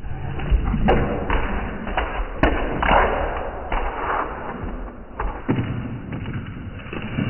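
Dull thuds and a few sharp knocks from a Boston terrier puppy scrambling across a hard floor after a ball, its paws and the ball striking the floor.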